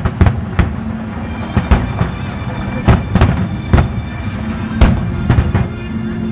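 Aerial fireworks going off in irregular rapid bangs, about a dozen sharp reports, over background music.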